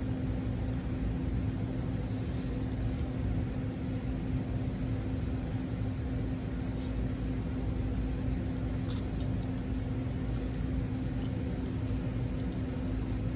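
Steady low hum with a constant tone, with a few faint clicks of chewing as a chicken wing is eaten.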